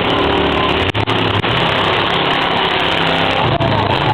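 Engines of several Baja off-road race cars running and revving together, their pitches rising and falling over a steady wash of noise.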